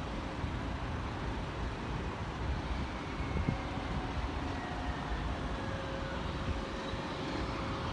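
Steady low vehicle rumble with a faint steady hum over it.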